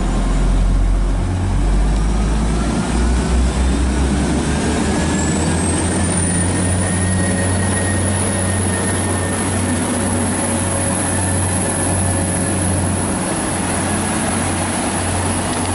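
Class 175 diesel multiple unit pulling away under power: a steady low diesel engine note with a transmission whine that rises in pitch over the first several seconds, then holds steady.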